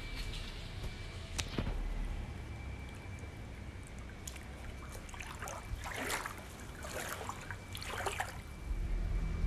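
Swimming-pool water lapping and trickling, with a few small splashes between about five and eight seconds in.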